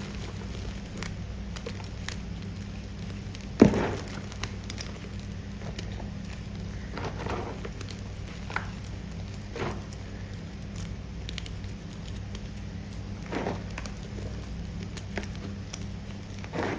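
Close-miked biting and chewing of firm pasted gym chalk: one loud crunch about three and a half seconds in, then softer crunches spaced a second or more apart, over a steady low hum.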